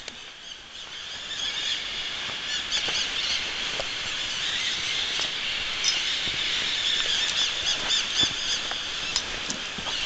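Outdoor wildlife ambience: a steady high-pitched chorus with quick, repeated chirping calls over it, swelling after about the first second.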